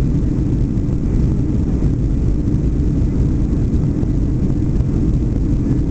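Steady cabin noise inside a Boeing 757-200 climbing out after take-off: an even, low rumble of the jet engines and airflow past the fuselage.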